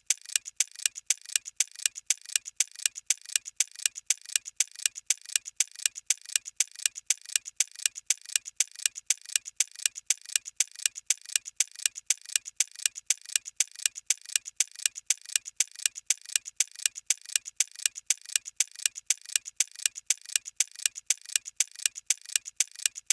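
Clock ticking sound effect, used as a steady countdown timer, with even ticks alternating louder and softer.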